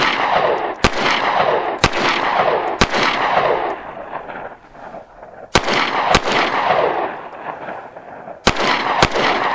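Seven shots from a SIG P365 9 mm pistol: three about a second apart, then a pause, two close together, and two more near the end. Each sharp crack is followed by a long echo that dies away over about a second.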